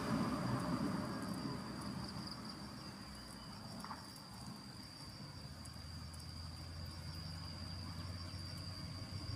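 Insects trilling in one steady high-pitched tone. A passing vehicle fades away at the start, and a low engine hum comes in about halfway through.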